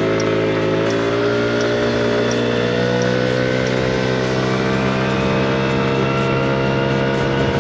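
Motor scooter engine pulling away, its pitch climbing for about the first second, then running steadily at cruising speed with a faint high whine that slowly rises.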